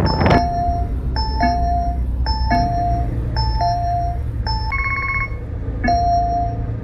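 Electronic two-tone chime repeating a high note then a lower one about once a second, with a short buzzing ring about five seconds in, over a steady low hum.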